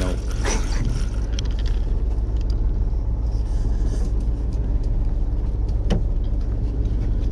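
Charter boat's engine running with a steady low drone, and a single sharp click about six seconds in.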